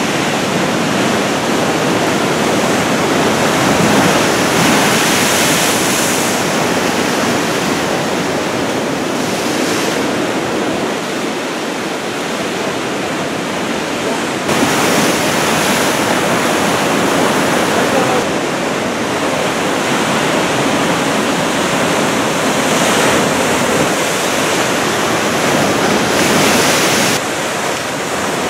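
Heavy typhoon-swell surf breaking and washing in a steady, loud rush, with sudden steps in level about halfway through and near the end.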